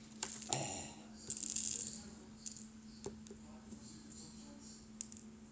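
Tiny resin diamond-painting drills rattling and clicking in a plastic tray: a few scattered clicks and one short rattling shake about a second and a half in.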